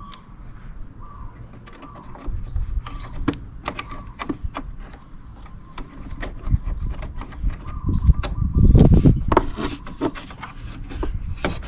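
Hand tools working the negative terminal clamp off a car battery: scattered metallic clicks and handling, with a louder stretch of clattering and scraping about eight to nine and a half seconds in.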